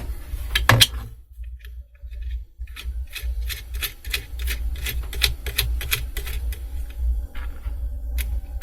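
Small sharp clicks from the metal parts of a quick-release bar clamp being worked by hand as lock nuts are fitted to its mechanism: a few in the first second, then a quick, fairly regular run of about three to four a second from under three seconds in.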